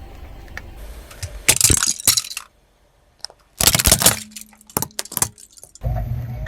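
Car tyre rolling over and crushing brittle objects: a loud burst of cracking and crunching about a second and a half in, a second burst just past halfway, then a couple of single snaps. A car engine's low rumble is heard at the start and again near the end.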